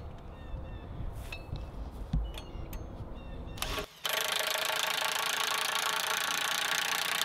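Makita cordless impact driver starting about four seconds in and then running steadily at full speed, driving a long bolt through a steel post bracket into a wooden post to fasten them together. Before it starts there are only small handling knocks.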